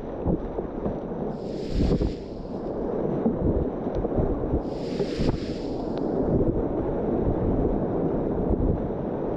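White Salmon River whitewater rushing steadily around a kayak. Two brief, brighter splashing hisses come about two and five seconds in.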